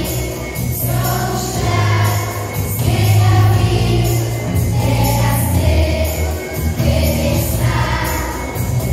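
Children's choir singing a song together into a microphone, over instrumental backing music with a steady bass line.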